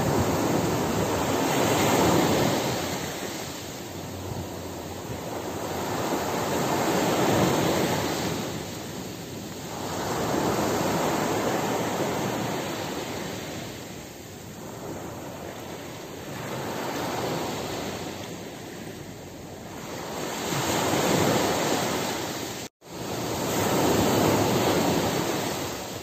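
Small ocean waves breaking and washing up a sandy beach, the surf swelling and ebbing every few seconds. Near the end the sound drops out for an instant.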